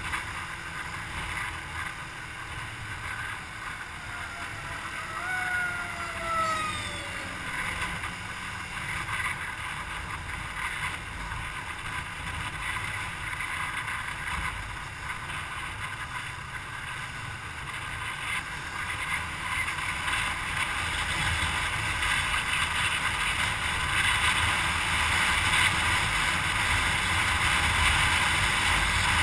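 Steady wind rush and road noise of a vehicle travelling at highway speed, growing louder in the second half as the speed rises. A brief falling whine sounds about five to seven seconds in.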